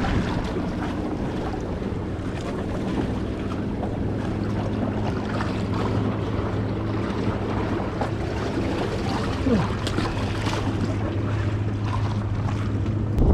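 A boat engine running at a steady low drone, with wind buffeting the microphone and waves washing against the rock wall.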